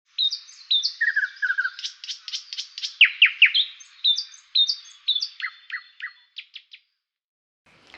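Bird calls: a quick run of high chirps and short whistles, some sweeping down in pitch, stopping about seven seconds in.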